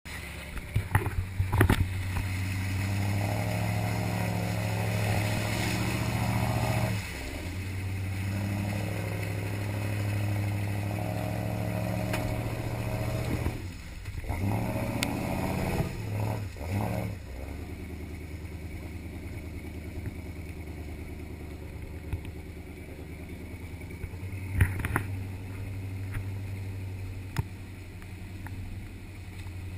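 Off-road vehicle's engine running steadily at low revs as it crawls along a rutted dirt track, its note dropping about seven seconds in. The body clatters and knocks now and then as it jolts over bumps, most sharply in the first two seconds, around the middle and once near the end.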